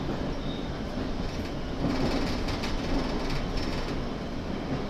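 London Underground 1992 Tube Stock train running in tunnel, heard from inside the car: a steady rumble of wheels on rail. It grows louder with a run of rapid rail clicks about two seconds in.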